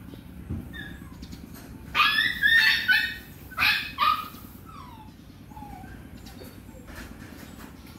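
Loud animal calls about two seconds in: a quick stuttering run of short pitched notes, then two louder notes, followed by a few faint falling calls.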